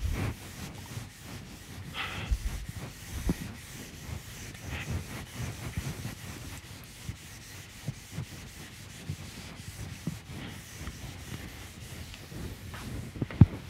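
A felt whiteboard eraser wiping across a whiteboard: irregular rubbing strokes.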